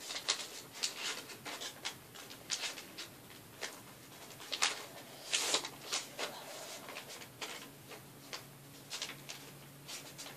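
Paper airplane being folded by hand: a sheet of paper rustling and being creased in an irregular run of short crinkles, the loudest two about halfway through. A faint low hum sets in about halfway through.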